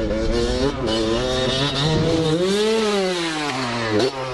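Vehicle engine running, its revs rising and then falling in one smooth sweep a little past the middle.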